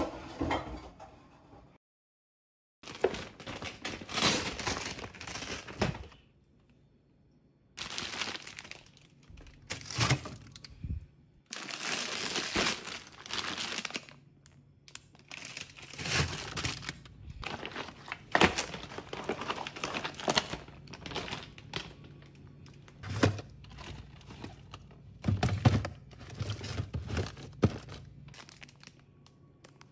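Groceries being unpacked and put into a fridge: plastic bags and packaging crinkling and rustling, with thunks and clicks of containers being set down. The sounds come in short bursts broken by brief gaps.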